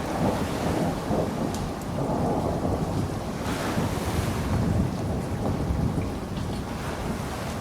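Thunderstorm: low, continuous rolling thunder under steady rain, with ocean surf on the shore. A brighter hissing swell rises about three and a half seconds in and fades a second later.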